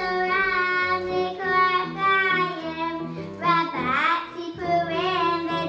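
Young girls singing a song over instrumental accompaniment, with held notes and some pitch slides.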